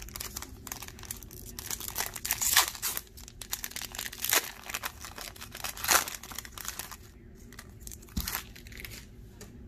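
Foil Pokémon booster pack wrapper crinkling in the hands and being torn open. A run of short crackles is loudest in the first six seconds, with softer handling and a single sharp click near the end.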